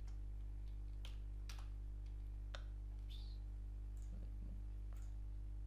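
Computer keyboard and mouse clicks, a handful of separate sharp clicks about a second apart, over a steady low hum.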